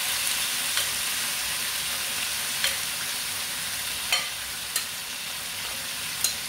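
Chicken hearts frying in a pan with ginger, garlic and onion: a steady sizzle that eases off a little, with a few sharp clicks.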